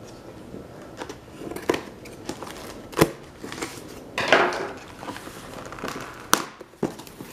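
Cardboard box being opened by hand: a few sharp clicks and taps as the lid and flaps are handled, and a longer scraping rustle of cardboard a little over four seconds in.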